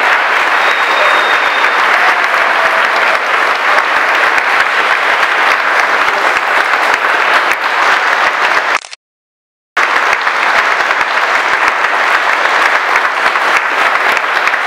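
A large crowd clapping steadily, many hands at once. The sound cuts out completely for about a second midway.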